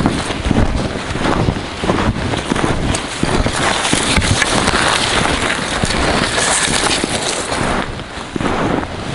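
Footsteps crunching through deep snow at a steady walking pace, with wind buffeting the microphone.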